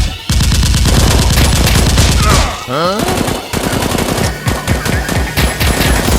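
Automatic gunfire sound effects: a dense burst of rapid shots, then, after a short sliding tone about halfway through, separate shots with booming tails at about four or five a second.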